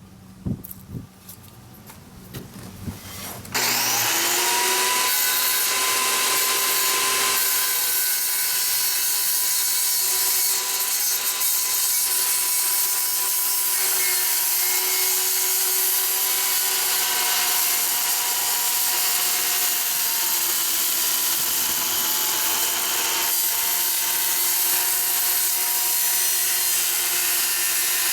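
A few faint knocks, then about three and a half seconds in a power saw starts and runs steadily, cutting wood, with a constant motor whine over the cutting noise.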